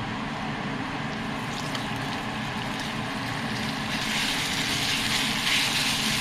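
Sliced beef sizzling as it stir-fries in a hot, lightly oiled pan. The sizzle grows louder and brighter about four seconds in, over a steady low hum.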